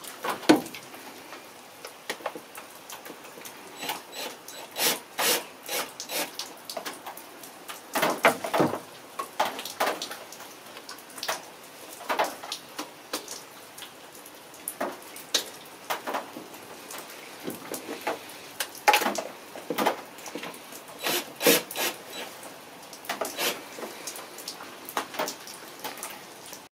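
Hand work on a car's engine accessory belts and their fittings: irregular scrapes, rubs and knocks, some coming in quick clusters, with no engine running.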